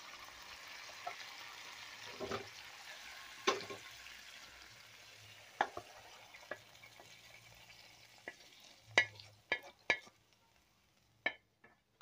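Hot ghee-and-spice tempering sizzling faintly in a pan, the hiss fading away over the first few seconds. After that come a handful of short sharp taps and knocks of the pan and wooden spatula against the cooking vessel as the tempering is tipped in and stirred.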